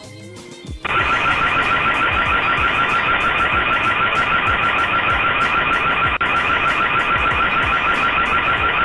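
Loud electronic alarm siren that starts about a second in and sounds without a break, warbling rapidly.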